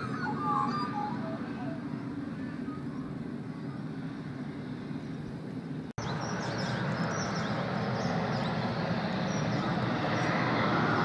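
Pilatus PC-12's single Pratt & Whitney PT6A turboprop running, heard from a distance as a steady engine and propeller noise. A few short chirps sound in the first second. After a sudden break about six seconds in, the engine noise comes back and grows louder and more hissing toward the end.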